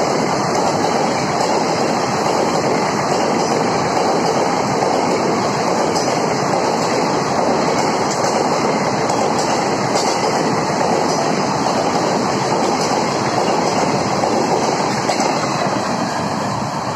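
Indian Railways ICF passenger coaches running through at speed close by: a loud, steady rush of wheels on rails with a few faint clicks at the rail joints, starting to fade near the end as the last coach pulls away.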